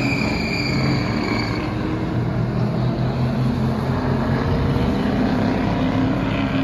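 Race ute engine running on the circuit: a steady, even drone, with a high whine over it that fades out about a second and a half in.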